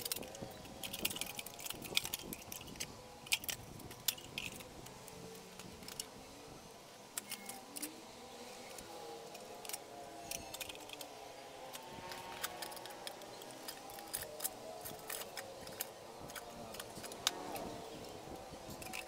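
Scattered light metallic clinks and taps as rice cooker parts are handled: the heating plate with its terminals and the cooker's metal body knock against each other and against the hands.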